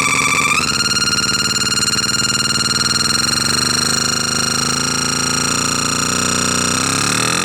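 CMOS-based harsh noise synthesizer droning loudly: piercing steady high tones over a rough, fast-pulsing low buzz, the high tones jumping up in pitch about half a second in.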